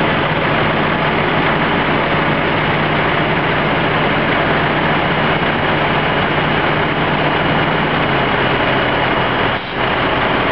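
Heavy diesel truck engine running steadily, its pitch stepping down slightly about eight seconds in, with a brief drop in level near the end.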